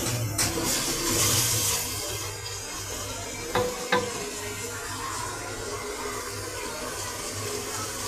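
Chicken in masala with a little added water sizzling and bubbling in a pressure-cooker pot, stirred with a wooden spoon for the first couple of seconds, then simmering more evenly. Two quick knocks about halfway through.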